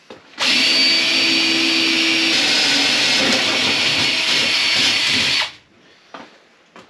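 Electric drill boring a hole through the thick steel rear door edge of a Ford Econoline van. It runs steadily for about five seconds and then stops.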